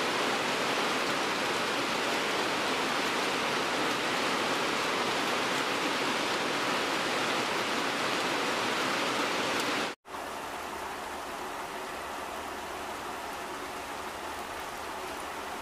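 Heavy rain falling steadily on trees and a wet lane, a dense even hiss. About ten seconds in it cuts out for a moment and gives way to a quieter, thinner rainfall.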